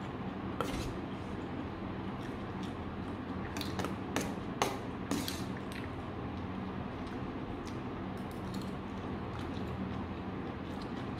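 Metal spoon clinking and scraping on a stainless steel plate of rice: a click about half a second in and a cluster of sharper clinks between about three and a half and five and a half seconds, over a steady low hum.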